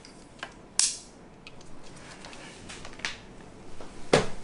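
Sirui T005KX travel tripod being handled: several sharp clicks and knocks from its legs and joints, the loudest about a second in and another near the end.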